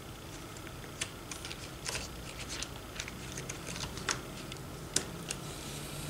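Hand screwdriver turning a screw into a plastic door stopper: irregular small clicks and scrapes of the bit in the screw head, a few sharper ones standing out.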